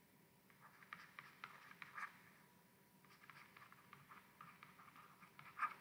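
Faint scratching and light tapping of a stylus on a tablet screen as words are handwritten, in short clusters of small ticks.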